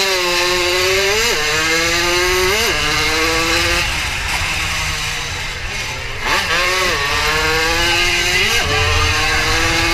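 A small 80 cc racing motorcycle engine running hard at full throttle. Its pitch climbs and drops sharply twice in the first few seconds as it changes up a gear each time. About six seconds in it eases off and wavers, then climbs again with another quick drop near the end.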